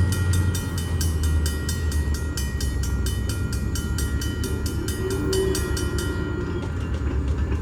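New England Central Railroad diesel locomotive 608 and its train running by: a steady low engine rumble with a fast, even rattling clatter that stops about six seconds in.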